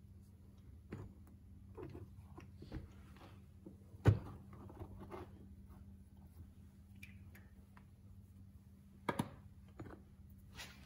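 Handling noises from a brake caliper rebuild on a workbench: soft clicks and light knocks of the metal caliper and small parts against a plastic parts case, with one sharp knock about four seconds in and a close pair of knocks about nine seconds in, over a faint steady hum.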